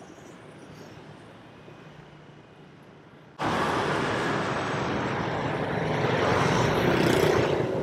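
Street traffic noise: a faint background hum that jumps suddenly louder about three and a half seconds in, becoming a loud rush of passing vehicles that swells and then fades near the end.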